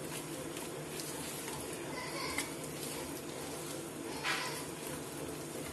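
A hand squishing and mixing a thick, wet paste of gram flour, yogurt and spices in a bowl: a steady wet squelching, with brief louder squishes about two seconds in and again about four seconds in.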